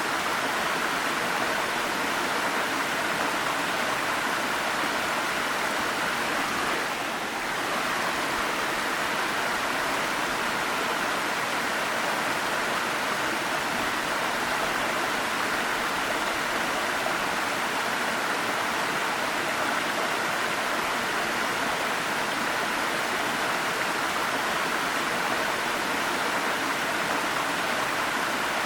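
Waterfall: water falling and rushing in a steady, even wash, with a brief slight dip about seven seconds in.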